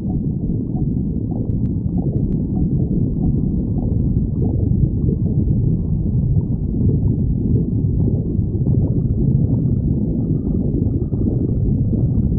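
A person's stomach growling and gurgling without a break, a deep, low rumble.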